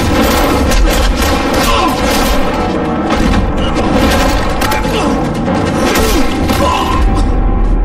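Dense action-scene soundtrack: music under repeated booms and crashing impacts, with some voices mixed in.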